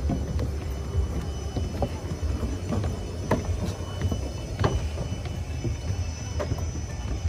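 Footsteps on a wooden boardwalk, irregular knocks every second or so, over a steady low rumble.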